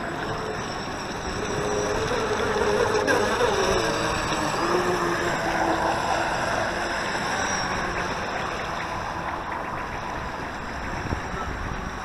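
Volantex Atomic 792-4 RC race boat's brushless electric motor whining as the boat runs close past and turns, its pitch gliding up and down and loudest a few seconds in, then fading as it heads away. A steady hiss of wind and water lies under it.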